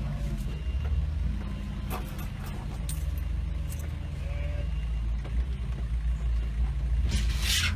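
Diesel engine of heavy construction equipment running steadily, a low rumble, with a short hiss about seven seconds in.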